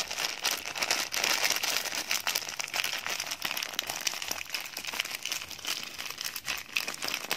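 Plastic bag of sugar crinkling as it is handled and tipped to pour sugar into a bowl, a continuous run of small crackles.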